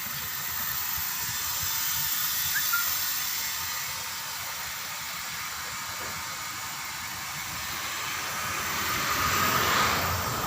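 A steady hiss that swells louder near the end.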